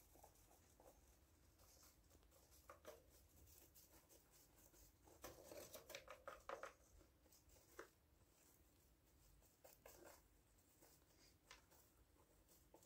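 Faint scratching and rustling of a hamster moving in the cage bedding, with a flurry of quick scratchy clicks around the middle.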